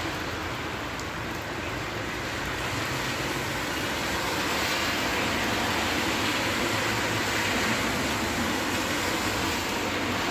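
Steady, even rushing of water in heavy rain, with no breaks.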